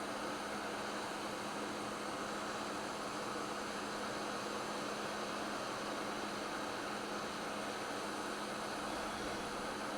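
Hot-air rework station blowing through a small nozzle, a steady hiss of air with a constant low hum from its fan, as it heats the board area.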